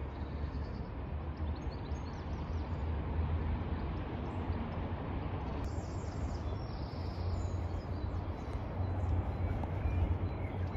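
Outdoor street ambience: a steady rushing background with a low, uneven rumble of wind on the microphone.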